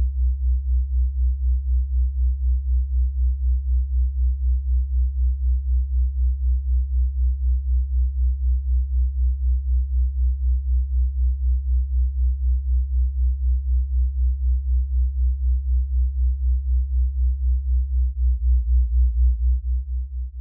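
Deep electronic bass tone pulsing evenly about three and a half times a second, with nothing higher in pitch over it. It swells a little near the end, then fades away.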